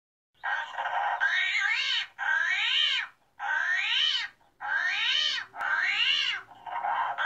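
A small animal's high-pitched calls, about six in a row at roughly one a second, each rising and then falling in pitch; they begin about half a second in.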